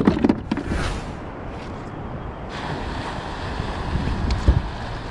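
Wind buffeting the microphone over sea water moving around a kayak, a steady hiss that grows fuller about two and a half seconds in. A few sharp knocks at the very start and a low thump near the end.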